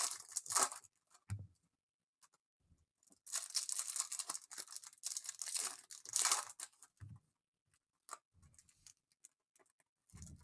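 A silver foil trading-card pack wrapper being torn open and crinkled by hand, in two stretches: briefly at the start and again for about three seconds in the middle. A few soft low thumps fall between and after them.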